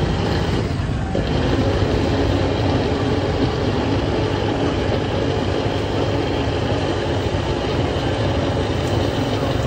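Countertop electric blender running steadily at high speed, blending a drink.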